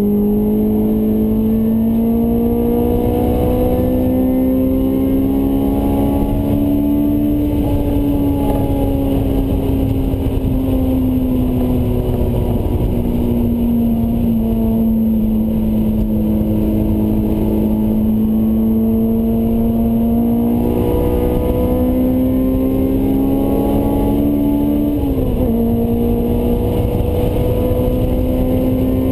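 Honda S2000 four-cylinder VTEC engine through a Mugen exhaust, held at high revs on track, heard from inside the cabin. Its pitch climbs, eases slowly down, climbs again, drops abruptly about 25 seconds in, then climbs once more, over steady road and tyre rumble.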